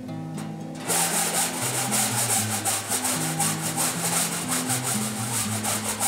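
A round file rasping back and forth in a drilled hole in steel sheet metal, enlarging it, in quick repeated strokes that start about a second in. Background music plays underneath.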